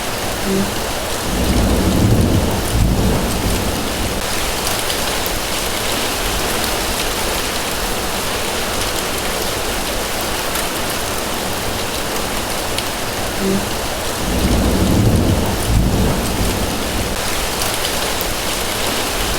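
Steady rain falling on grass, an even hiss of drops throughout. Two brief low rumbles rise under it, about a second and a half in and again about fourteen seconds in.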